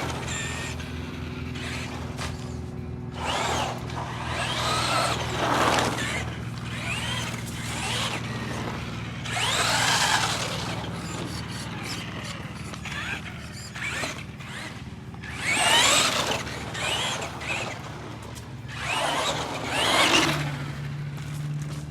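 Electric motor of a Tamiya Mad Bull RC buggy, a 12-turn motor, revving up and down in about five bursts, its whine rising and falling in pitch over a steady low hum.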